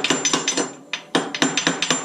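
Rapid hammer blows on metal, several strikes a second with a metallic ring, stopping briefly about two-thirds of a second in before carrying on.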